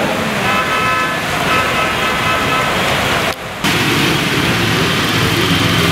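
Steady rain with road traffic: a vehicle horn sounds twice in the first two seconds. After a brief break about three and a half seconds in, rain and traffic go on with engines running.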